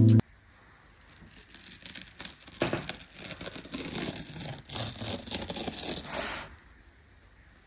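Paper tear strip being peeled off a MacBook Pro's cardboard box: an irregular crackling rip that runs for about five seconds and stops shortly before the end.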